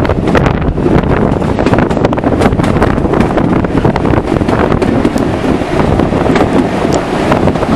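Moving passenger train heard from a carriage window: a steady rumble of the wheels on the track, with frequent irregular clicks and clatter, under wind buffeting the microphone.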